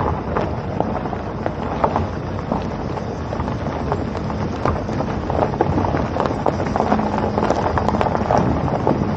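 Wind rushing over the microphone of a moving vehicle on the road, with road noise beneath: a steady rumbling hiss crackling with many small pops.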